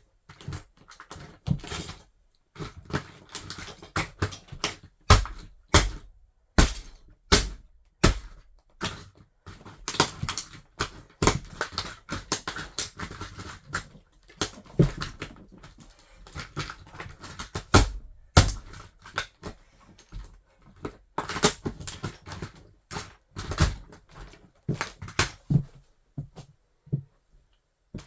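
Toy car crunching and cracking under a wedge sandal: many sharp, irregular cracks with heavier thuds mixed in.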